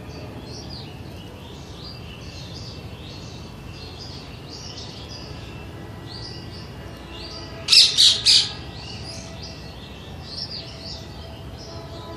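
A green parakeet gives four quick, shrill screeches in a row about eight seconds in. Softer, scattered chirping of other birds goes on throughout.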